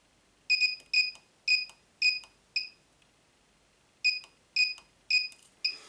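Cheap 18650 battery spot welder board beeping as the welding leads are pressed to the nickel strip: short high beeps, each with a faint click, five about half a second apart, a pause, then four more. The welds are not taking, which the owner puts down to the welder's battery being too dead.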